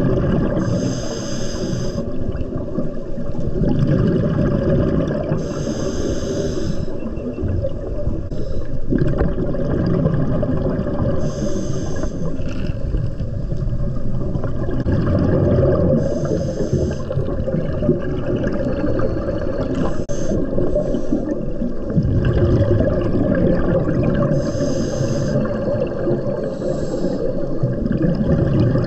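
Scuba regulator breathing underwater: a short hissing inhale about every five seconds over a steady low rumble of exhaled bubbles and water.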